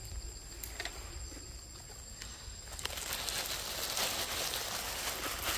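Dry leaf litter rustling and crackling as macaques move and forage, growing louder about three seconds in, over a faint steady high-pitched whine.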